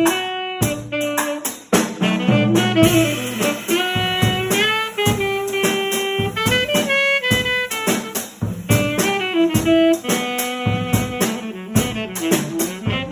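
Saxophone playing a lively melody over a drum kit beat, in a small ensemble.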